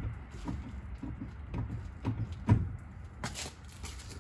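A run of short clunks and knocks, about one every half second, the strongest about two and a half seconds in, from the brake pedal being pressed a few times to set the Mitsubishi Mirage's freshly fitted rear drum brake shoes against the drum.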